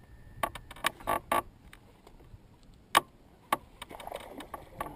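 A string of sharp, irregular knocks and clicks from a rod, reel and gear being handled inside a small plastic canoe. The loudest knock comes about three seconds in, as a fish is being hooked.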